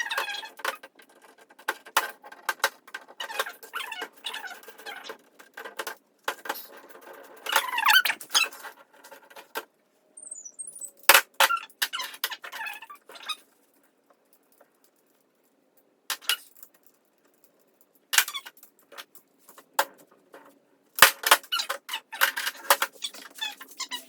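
Metal tool working the bicycle stem's faceplate bolts, giving irregular clicks and short squeaks, with a brief quiet pause about two-thirds of the way through.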